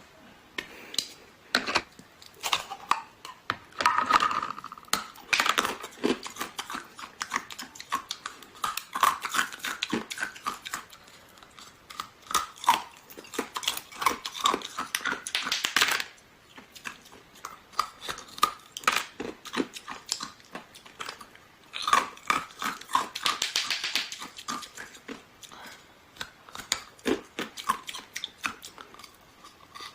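Close-miked crunching and chewing of ice, with sharp cracks and crackles coming in dense bouts separated by quieter pauses.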